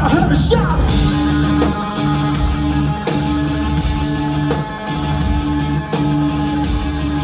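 A rock band plays live: a heavy electric guitar riff repeating in even cycles of about a second and a half over bass. A guitar pitch dive falls away in the first second.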